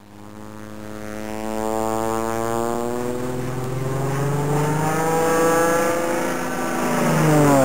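A jet aircraft flying past. The engine sound swells over several seconds and is loudest near the end, where its pitch drops sharply as it passes.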